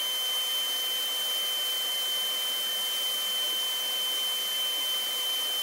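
Electric paint spray gun running steadily while spraying watered-down primer: a constant high whine over an even rush of air.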